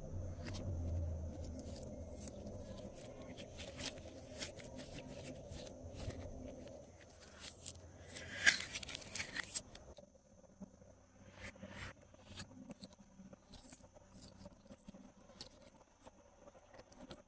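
Glossy slime being worked by hand, giving many small sticky clicks and crackles, with a denser burst of crackling about eight to nine seconds in.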